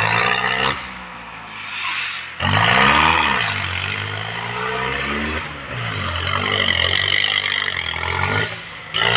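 Tractor diesel engine revving up and down. The revs drop just under a second in, jump sharply about two and a half seconds in, then ease off and dip again near the end.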